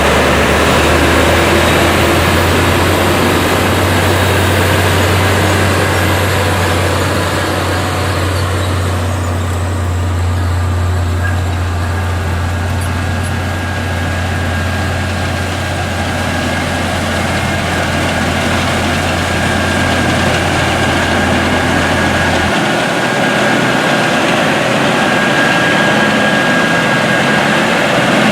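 Heavy diesel harvest machinery running steadily in a wheat field, with a deep engine hum that cuts off suddenly about three-quarters of the way through. A faint steady whine runs on under the machinery noise.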